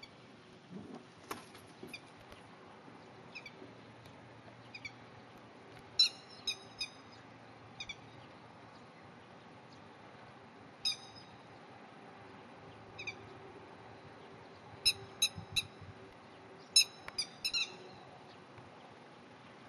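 Grey-headed lapwings giving sharp, high calls in quick clusters of two to four notes, the territorial alarm calls of a breeding pair. The loudest calls come about six seconds in and again in a run near the end.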